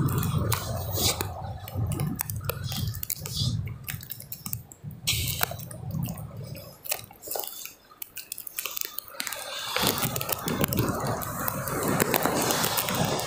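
Wind buffeting the microphone in gusts, strongest at the start and again from about ten seconds in, with scattered small clicks and taps throughout.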